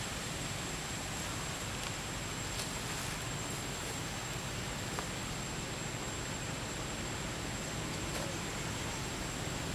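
Steady outdoor background hiss with a thin, constant high-pitched whine and a few faint ticks.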